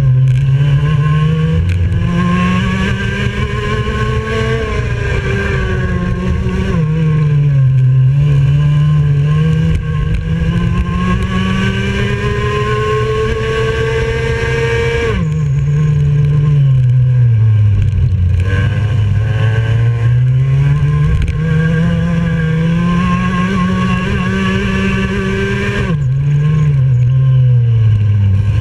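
IAME X30 Junior 125cc two-stroke kart engine driving hard around a lap. Its pitch climbs steadily along the straights and falls sharply under braking for the corners, three big drops and a few smaller dips.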